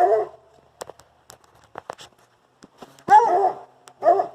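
Scattered footsteps, a handful of sharp steps about a second in and around two seconds, between short bits of a man's voice near the start and about three seconds in.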